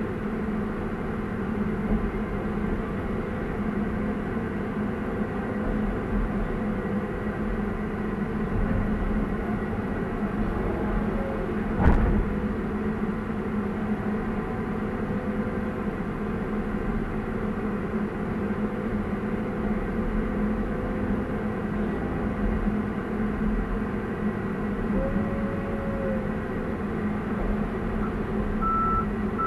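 Excavator's diesel engine running steadily as it digs, heard from inside the operator's cab. A single sharp knock about twelve seconds in, and a reversing alarm starts beeping near the end.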